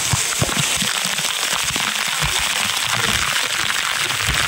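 Waterfall water pouring straight onto the camera, a dense crackling spatter of water hitting the microphone, with irregular low thumps.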